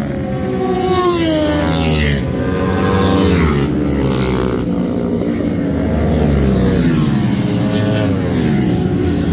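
Several road-racing motorcycles passing at full speed one after another. Each engine's note drops in pitch as it goes by.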